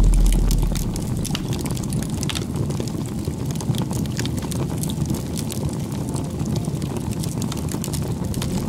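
Wood bonfire burning: a steady low rumble of flames with frequent sharp crackles and pops from the burning wood. It opens with a deep low boom that dies away within the first second.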